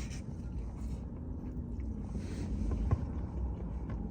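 Steady low rumble of a car cabin, with faint chewing and small eating noises and a short click about three seconds in.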